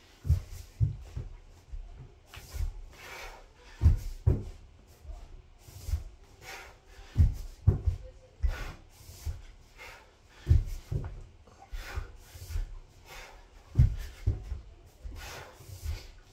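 Burpees on a wooden floor: a pair of heavy thumps from hands and feet landing about every three seconds, five times over, with breaths and clothing rustles in between.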